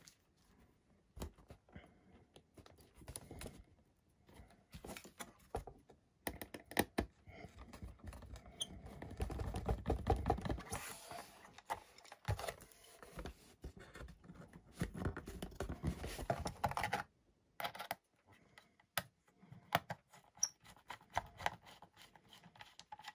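Small screwdriver and plastic servo hatch cover being worked into a foam RC plane wing: scattered light clicks, taps and scraping, with a busier stretch of scraping in the middle.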